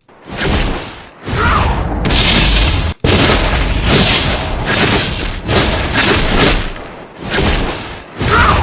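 AI-generated fight-scene sound effects from Sony's Woosh model: a rapid run of heavy punch-like thuds and whooshing swings under deep booms, a new hit about every second.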